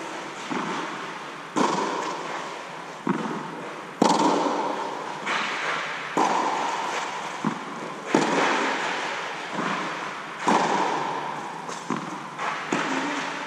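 Tennis rally: a tennis ball struck by rackets and bouncing on the clay court, a sharp impact every second or so, each one ringing out in a long echo inside the inflatable tennis dome.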